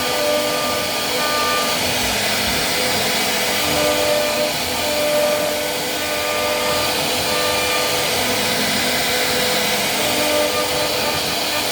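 CNC wood router spindle running steadily: a loud, even whining hiss with faint tones that come and go.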